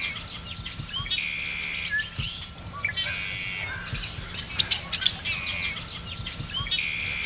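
Songbirds singing. One bird repeats a trilled phrase about every two seconds, with short chirps from others in between.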